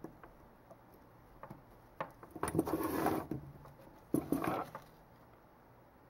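Two short spells of clicks and rustling from handling at a soldering bench, about two and four seconds in, as the soldering iron, solder wire and XT-60 connector in a helping-hands clamp are moved. Otherwise quiet room tone.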